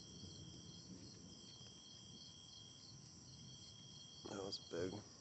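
Crickets chirring in a faint, steady chorus, with one high trill that breaks off and starts again every second or so. Near the end come two short, louder voice-like sounds.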